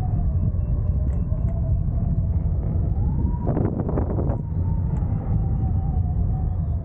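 Wind rushing over the microphone of a hang glider in flight, with a thin whistle that rises in pitch about three seconds in and slowly eases back down. A brief rapid flutter comes at about three and a half seconds.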